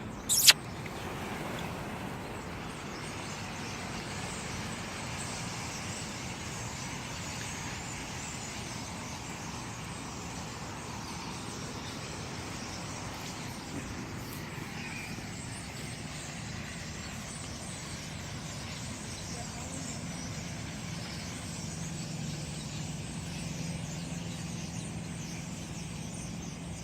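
Steady outdoor noise like distant road traffic, with faint bird chirping through it. There is a sharp click about half a second in, and a low steady hum in the last several seconds.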